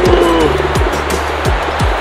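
Background music with deep kick-drum thumps and a bass line.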